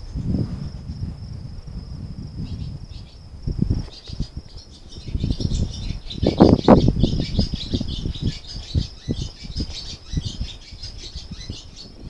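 Crickets trilling steadily, the chirping getting busier a few seconds in, over low rustling and thumps from the camera being handled; the loudest knock comes about six and a half seconds in.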